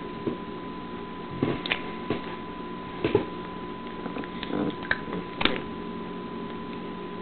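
A 10-month-old baby making short, silly mouth sounds while eating: lip smacks, little squeaks and brief vocal noises, about eight in all. A faint steady electrical hum lies underneath.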